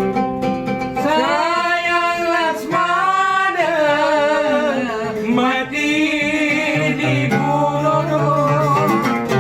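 A traditional Malay song: a singer comes in about a second in with long, wavering, ornamented phrases over plucked string accompaniment.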